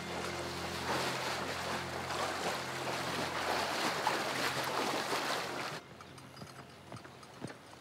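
Water splashing and rushing as people wade through a fast, muddy river, with a low sustained music chord fading out in the first second or two. About six seconds in it drops suddenly to a quieter background with a few soft knocks.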